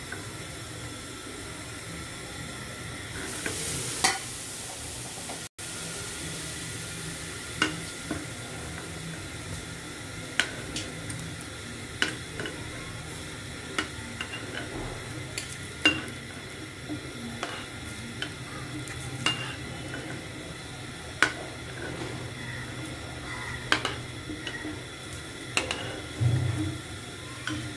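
Hot oil sizzling steadily as fried kalojam (milk-powder dough balls) are lifted out one at a time with a metal spatula. The spatula makes sharp clicks and scrapes every second or two, and the hiss flares up briefly about three to four seconds in.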